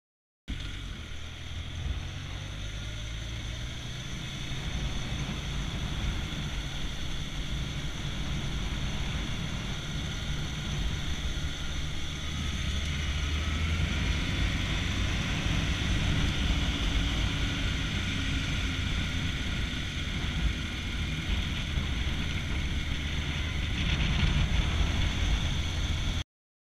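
Motorcycle engine running while riding, with wind noise on the on-board camera's microphone; the engine note rises and falls a few times as the bike slows and speeds up. The sound starts abruptly about half a second in and cuts off just before the end.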